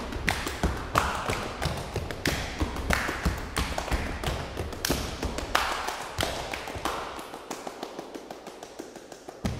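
Body percussion by four performers: fast, interlocking hand claps and slaps on the chest and thighs, with low stomps on a wooden stage floor. Near the end the low stomps drop out and only lighter, quieter claps and taps are left.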